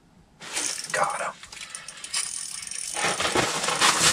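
Rustling and rattling of clothing and gear being handled close to the microphone, starting about half a second in and growing denser near the end.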